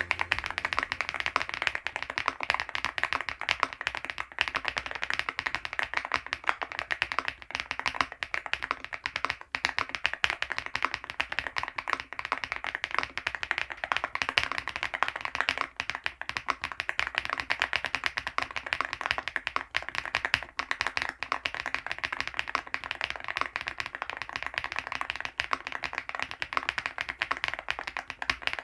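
Keystrokes on a MCHOSE GX87 tenkeyless mechanical keyboard fitted with Vintage White switches: continuous fast typing, a dense stream of crisp clacks with no pauses.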